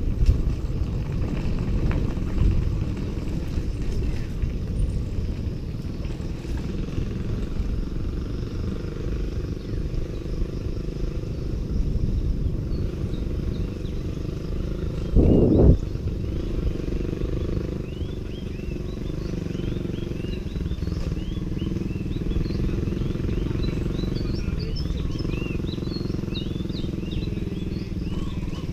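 Wind buffeting a bike-mounted action camera's microphone, over the rumble of bicycle tyres rolling on a rough, cracked concrete lane, with one louder gust about halfway through. Faint high chirping comes in during the second half.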